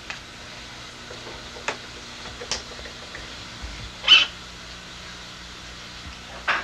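Pet birds giving four short, sharp squawks over a low steady hum; the third squawk is the loudest.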